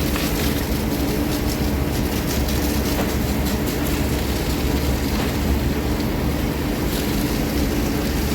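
Heavy diesel engine running steadily with a constant low rumble.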